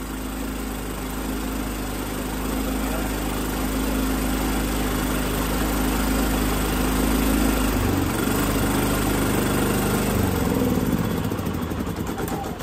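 Predator 3500 inverter generator's single-cylinder engine running on propane at a steady note. About eight seconds in, its pitch starts to waver and it stumbles, then dies away near the end as its gas supply is shut off at the cylinder.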